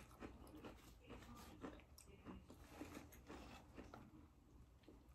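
Faint biting and chewing of a burger: soft, irregular crunches and small mouth clicks.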